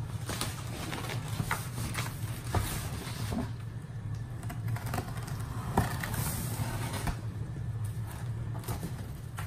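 Packing tape on a large cardboard box being slit along the seam, with scrapes, rustles and taps of hands on the cardboard, over a steady low hum.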